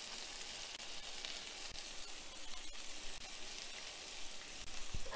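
A pan of vegetables sizzling steadily in the high heat of a countertop pizza oven, with faint crackles as pieces of zucchini are dropped in.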